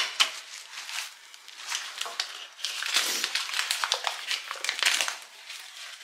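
Paper and plastic packaging crinkling and rustling as a freshly unboxed crib is handled, in a run of short crackles that is busiest from about halfway through.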